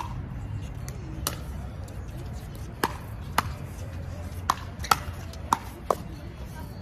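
Pickleball rally: paddles striking the hollow plastic ball with sharp pocks, about seven hits, spaced out at first and coming quicker toward the end.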